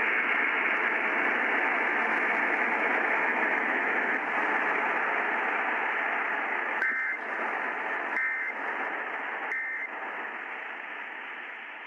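Radio static hiss, then three short warbling bursts of Emergency Alert System end-of-message data tones, a little over a second apart, starting about seven seconds in. The bursts mark the close of the alert test.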